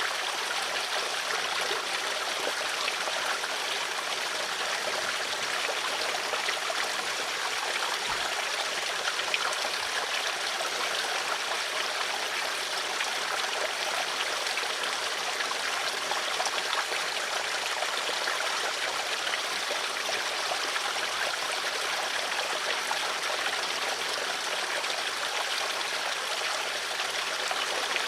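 Flowing stream water, a steady even rush with fine trickling.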